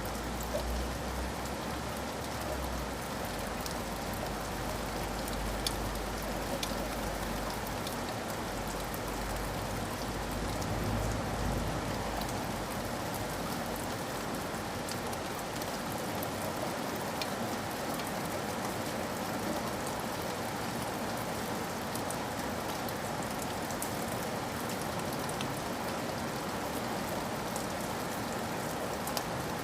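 Steady rain falling, with scattered small drip ticks. A low rumble sits underneath for about the first twelve seconds, then fades.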